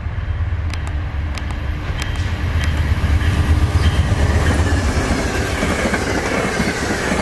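Amtrak passenger train passing at speed, led by a GE Genesis diesel locomotive. The locomotive's deep engine rumble peaks as it goes by, about three to four seconds in. After that the wheel-on-rail noise of the stainless-steel passenger cars takes over, with a few sharp clicks early on.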